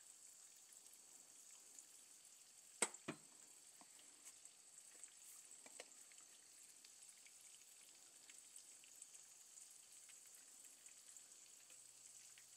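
Breaded walleye fillets frying faintly in a pan of oil, a quiet sizzle with small crackles. Two sharp clicks come about three seconds in.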